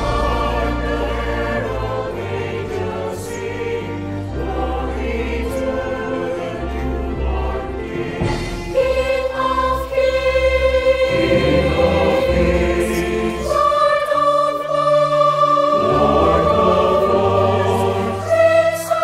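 Combined mixed choir singing a Christmas carol medley with instrumental accompaniment and a low bass line. About nine seconds in the music gets louder and moves into long held chords.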